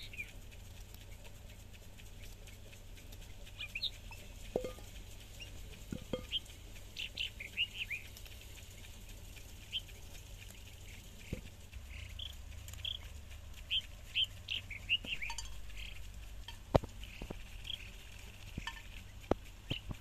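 Birds chirping in short, scattered calls, with a few light knocks and one sharper click near the end.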